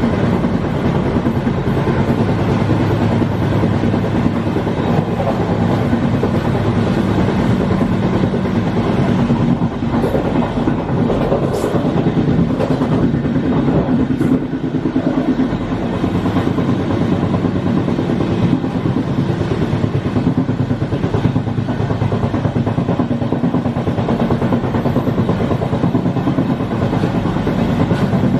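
A Bm235 second-class Intercity coach running at speed, heard from the rear end of the train: a steady wheel-on-rail rumble. Around the middle there are a few sharp clicks as the wheels cross a set of points.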